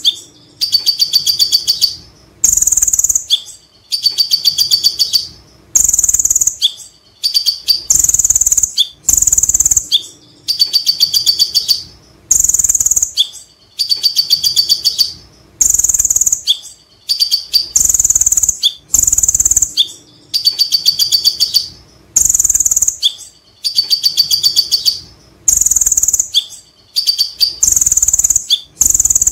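Male kolibri ninja (konin) sunbird singing its 'ngekek' song: loud repeated phrases, each a high sharp note followed by a fast chattering trill, coming about every one and a half to two seconds.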